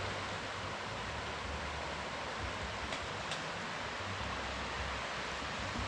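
Steady rush of a shallow stream flowing over rocks, with a low rumble underneath and two faint ticks about three seconds in.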